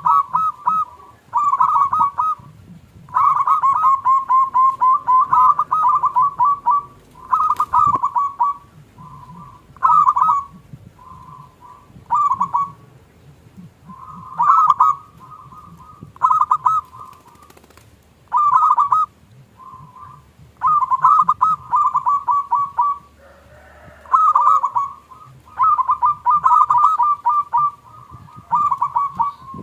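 Zebra dove (local perkutut) cooing over and over in bouts of quick, stuttering notes at one pitch, each bout lasting one to a few seconds with short pauses between.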